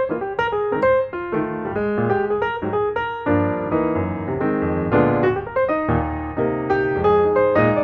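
Background piano music: a continuous run of quick notes over lower chords.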